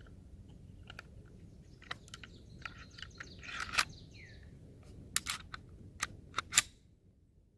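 Handling noise from pistols being picked up and moved: a string of sharp clicks and light knocks with a short rustle, the clicks bunched in the second half.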